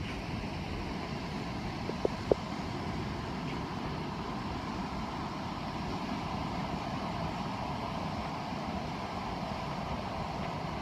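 Steady outdoor ambient noise with no clear rhythm, broken by two short clicks close together about two seconds in.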